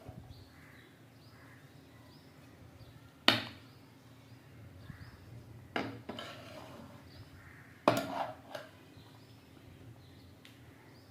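Metal utensil clanking against a cooking pot: three sharp clanks about two and a half seconds apart, each with a brief ring.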